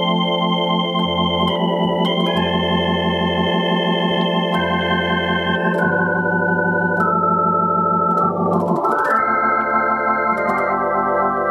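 Yamaha PSR-750 keyboard playing its Hammond B-3 organ voice through the Leslie rotary-speaker simulation: held chords with a warbling shimmer over low bass notes that come and go. A quick sweep of notes runs across the keys about nine seconds in.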